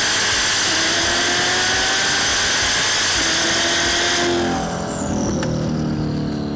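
Twin-turbocharged 427 LT2 V8 in a C8 Corvette under hard acceleration: loud, rushing engine and induction noise with the engine note rising slowly. About four seconds in it backs off, a high whistle falls away, and the engine settles into lower, steadier running.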